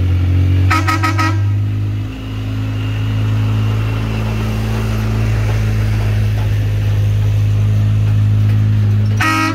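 Car horn honked in a quick run of short toots about a second in, and again near the end, over a vehicle engine running steadily.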